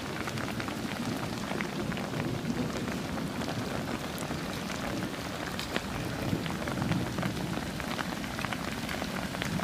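Light drizzle and dripping rainwater after a downpour: a steady patter with many scattered sharp drips.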